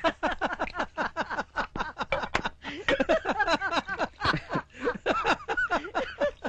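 Men laughing together in quick, repeated bursts.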